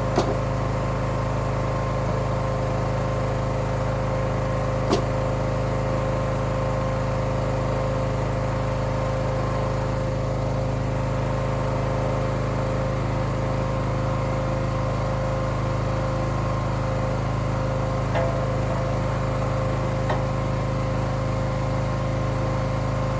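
Small gasoline engine running steadily at an even, unchanging speed, with a few faint knocks at the start, about five seconds in, and twice near the end.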